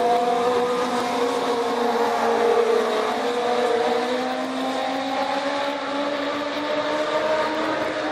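Several Legends race cars, with Yamaha motorcycle engines, running hard around the oval. Their overlapping high-revving engine notes blend and slowly slide up and down in pitch as the cars circle.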